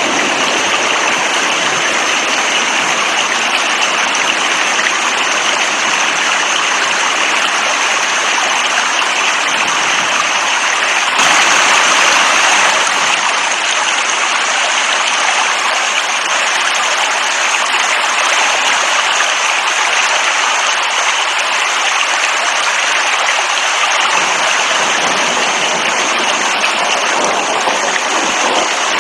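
Steady heavy rain, a dense even hiss of falling water that swells a little louder for a couple of seconds partway through.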